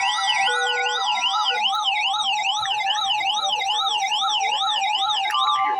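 Emergency alert tones for a severe thunderstorm warning: a fast siren-like warble sweeping up and down about three times a second, over a steady alert tone. The warble stops shortly before the end, and the steady tone carries on.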